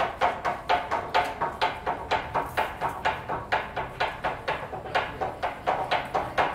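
Candy-cutting knives striking a wooden cutting board in a quick, steady drumming rhythm, about four or five strokes a second, with louder and softer strokes alternating and a ringing knock to each hit. Lengths of hard candy are being chopped in the traditional 'tontoko' candy-cutting.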